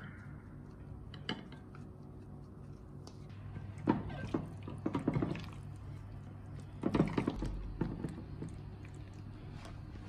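Hands mixing raw chicken strips with marinade in a glass dish, making wet squishing handling noises in two spells, a little before halfway and again about two-thirds through. A steady low hum runs underneath.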